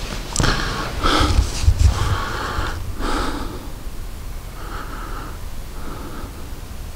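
A person breathing heavily and sniffing close to the microphone, several breaths in the first three seconds, then fainter ones.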